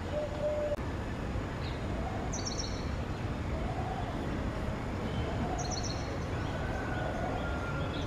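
Green bee-eater calls: two short bursts of rapid high trilled chirps, about three seconds apart, over a steady low background rumble.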